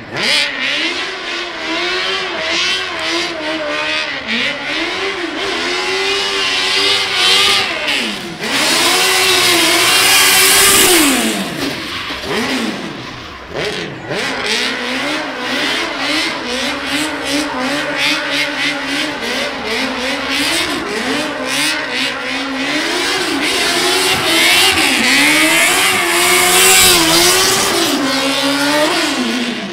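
Stunt car's engine revving up and down repeatedly while its tyres squeal through drifting spins, the tyre screech loudest around ten seconds in and again near the end.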